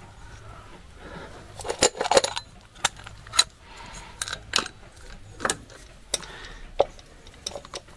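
Scattered metallic clicks and clinks, about a dozen short sharp ones, from handling the metal shielding cover and ignition leads of a GAZ-66 truck's distributor.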